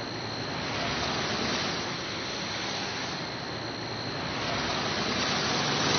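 Gusty wind rushing across the camcorder microphone, swelling and easing, over a low steady hum.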